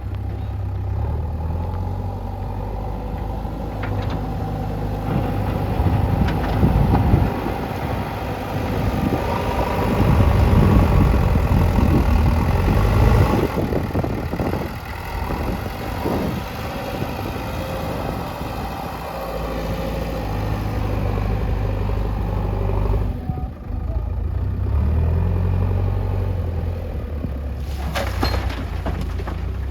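JCB backhoe loader's diesel engine running under working load, growing louder in stretches as the revs rise, with a short knock near the end.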